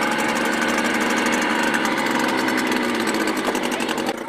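Small motor boat's engine running steadily and loudly close by.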